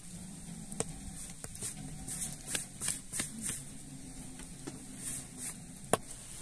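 Hands working bread and dough: a string of short brushing and patting sounds with a few sharp taps, the sharpest just before the end.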